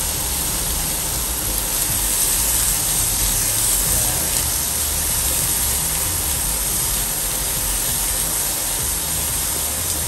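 An egg, hot dogs and mixed vegetables sizzling steadily in a non-stick pan on a Dreepor electric ceramic cooker set to 1200 W, with the cooker's cooling fan running underneath.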